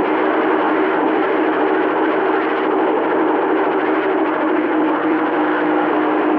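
CB radio receiver on channel 28 putting out a steady rush of static with faint steady hum tones underneath, as an incoming signal registers on its signal meter with no voice on it.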